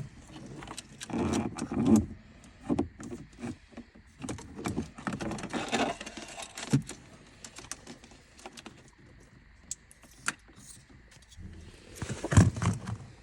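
Hands handling wiring and small parts inside a car: irregular rattling, rustling and clicking. It is loudest about a second in and again near the end.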